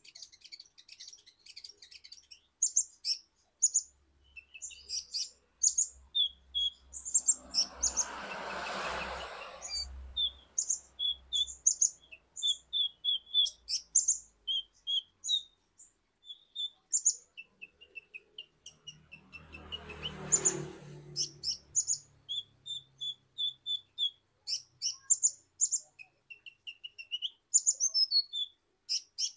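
Male kolibri ninja (purple-throated sunbird) singing a fast, high twittering run of short chirps. Twice, about 8 and 20 seconds in, a rushing noise rises under the song for a couple of seconds.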